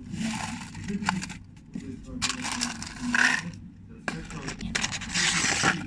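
Rustling and scraping of objects handled close to the phone's microphone, in three bursts.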